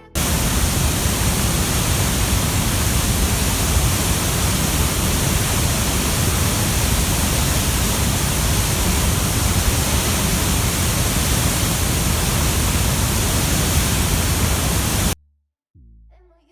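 Loud, steady static-like noise: an even hiss across all pitches with a rumble underneath. It starts abruptly and cuts off suddenly about fifteen seconds in.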